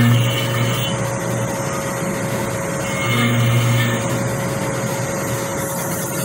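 Small DIY CNC router's spindle running while an end mill cuts a pocket in an aluminium block: a steady whine over dense cutting noise, with a deeper hum that swells for about a second around three seconds in.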